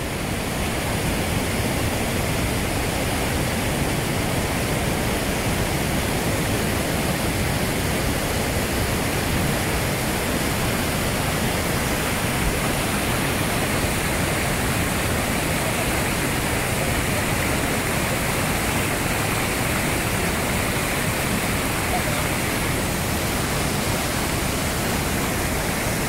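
A large waterfall in heavy rainy-season flow: a steady, even rush of falling water.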